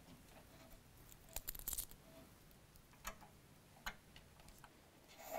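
Faint, scattered clicks and taps of hands handling a mass hanger, string and pulley at the end of a trolley track, with a small cluster of clicks about a second and a half in and a louder tap at the end.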